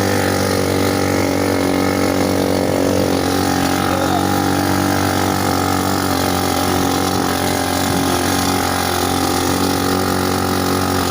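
ATV engine running at a steady, even pitch.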